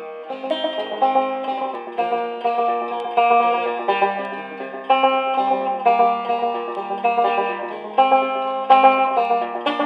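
Banjo music: a picked banjo playing a tune, each note plucked sharply and then dying away.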